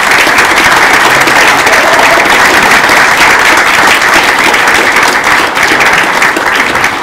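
Audience applauding, a loud, steady round of clapping.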